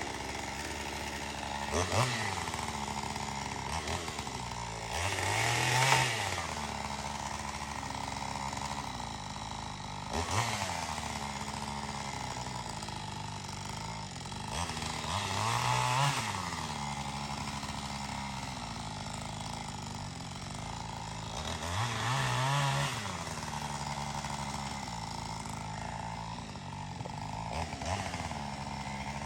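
Chainsaw engine running steadily near idle, revved up and back down in short bursts about six times.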